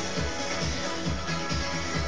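Electronic dance music with a steady beat and sustained synth tones.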